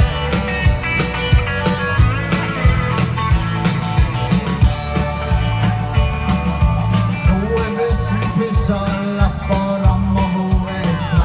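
Live country-rock band playing: guitars over a steady drum beat, heavy in the bass.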